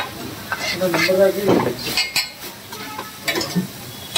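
Pav bhaji sizzling on a large flat griddle, with sharp clicks and scrapes of metal utensils. A voice is heard briefly in the background about a second in.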